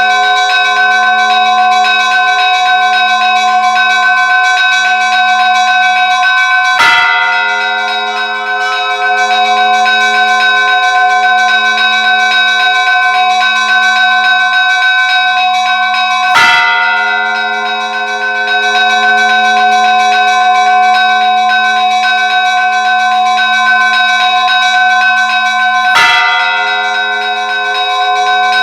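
A large church bell tolled slowly, struck three times about ten seconds apart. Each stroke leaves a long ring whose deep hum pulses slowly.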